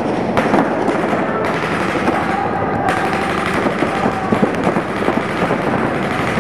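Paintball markers firing rapidly from several guns at once, a dense, unbroken crackle of shots inside a large indoor arena.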